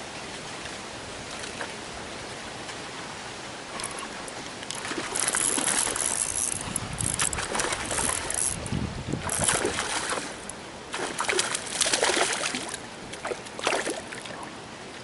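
A hooked trout splashing at the water's surface in repeated irregular bursts, starting about four seconds in.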